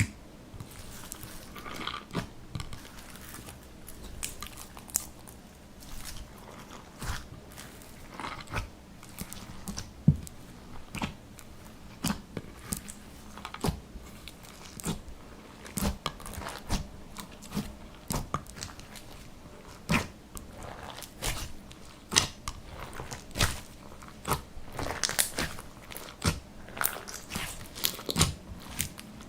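Hands kneading and squeezing slime, giving a run of irregular wet clicks and pops, one or two a second, with soft squishing between them.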